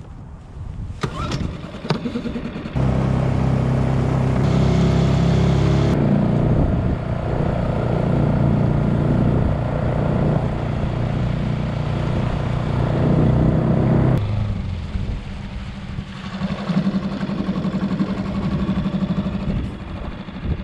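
Small Suzuki tiller outboard motor on a jon boat. It comes in abruptly about three seconds in and runs loud and steady, then eases to a lower, quieter running about fourteen seconds in.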